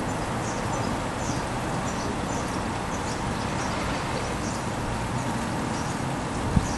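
A small bird chirping over and over in short high notes, about two a second, over a steady background of outdoor noise. A single short thump near the end.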